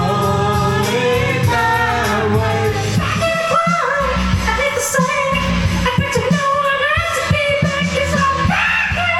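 Karaoke: a pop backing track with a steady bass beat and a voice singing the melody over it.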